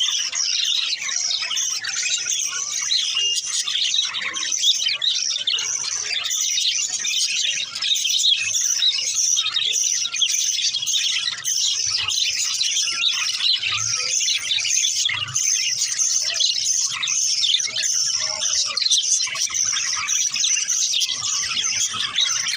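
Budgerigars chirping without pause, many short calls overlapping in a dense, steady chatter.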